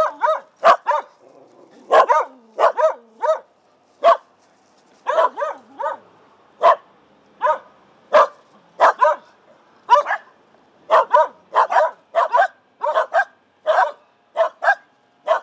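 Several Shetland sheepdogs barking over and over, short sharp barks coming in quick runs of two to four with brief pauses between.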